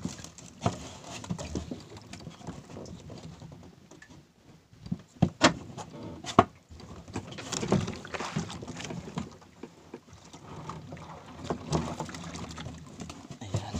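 Irregular knocks, bumps and rustling as a fisherman moves about a small boat, hauling and working tangled nylon fishing lines, with a few sharp knocks about five to six and a half seconds in.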